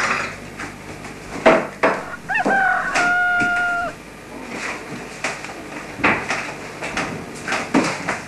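Scattered clatters and knocks, and about two seconds in one pitched animal call that slides up and then holds steady for about a second and a half.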